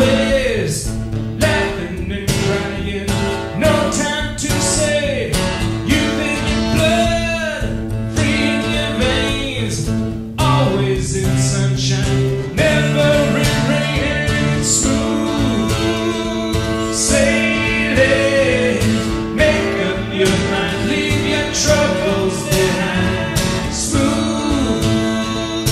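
Music: a country-style song with guitar accompaniment.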